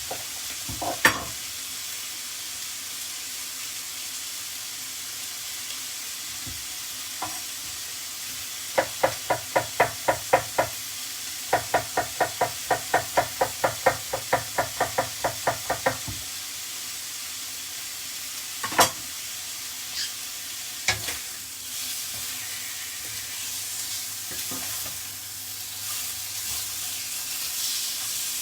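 Chicken breast frying in a pan on high heat, a steady sizzle. In the middle come two runs of quick, even knocks, about four or five a second, and a few single knocks fall before and after.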